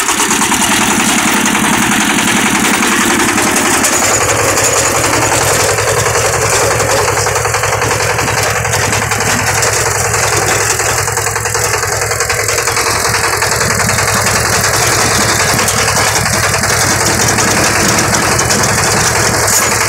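Walk-behind two-wheel tractor's engine running steadily under load while its rotary tiller, fitted with straight toothed blades, chops weeds into the soil.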